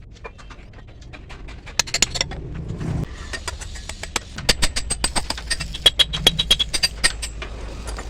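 A rapid run of sharp clicks and taps, some with a brief high ring, over a low steady hum. The taps come thickest and loudest in the middle of the stretch.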